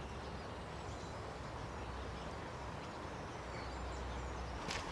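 Quiet outdoor woodland ambience: a steady low rumble under a faint even hiss, with a few faint clicks near the end.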